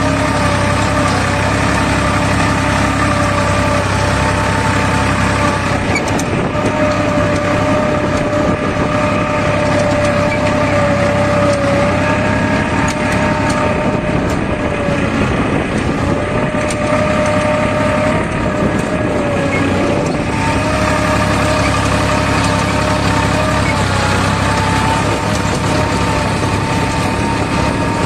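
Farmtrac 65 EPI tractor's diesel engine running steadily under the load of an 11-tine cultivator, at about 1600 rpm in second high gear, heard from the driver's seat.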